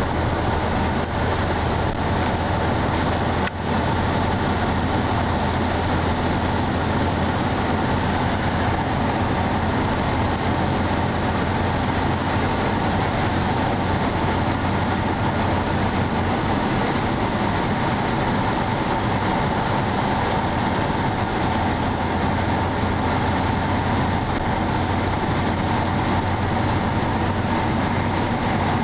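Inside the cabin of a BMW E39 M5 near its top speed: the 4.9-litre V8 held at high revs under steady wind and tyre noise, the pitch barely changing.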